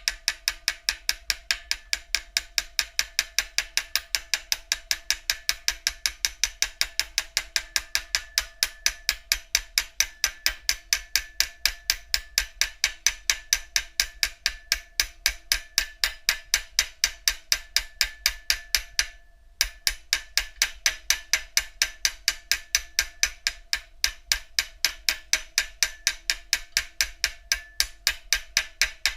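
Steady hammer blows on metal, about four a second, each leaving a short metallic ring, as a wheel bearing is driven into or out of the hub. The blows stop briefly about two-thirds of the way through, then carry on.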